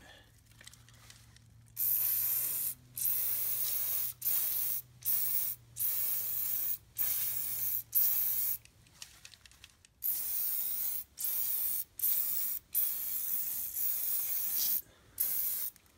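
AMSOIL Heavy Duty Degreaser aerosol can spraying in about a dozen short hissing bursts with brief pauses between them, starting about two seconds in.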